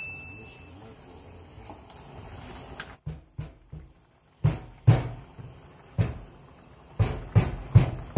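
Cookware being handled on a gas stove: a run of about ten sharp knocks and thumps at uneven spacing, starting about three seconds in. Before them there is only a low steady background noise.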